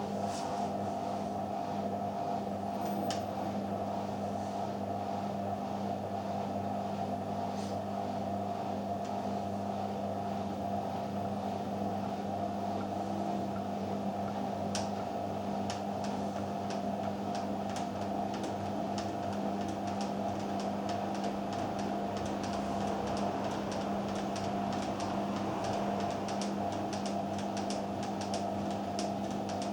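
Hoover VHD 816 washing machine running with an unbalanced drum: a steady motor hum. From about halfway, rapid regular ticks or knocks join it and grow denser toward the end.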